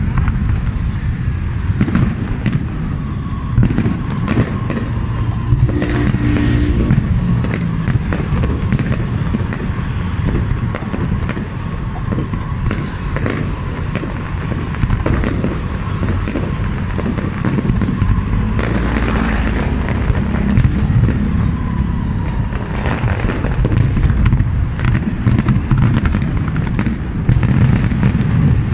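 Aerial fireworks display: shells bursting in a continuous run of booms and bangs over a deep rumble.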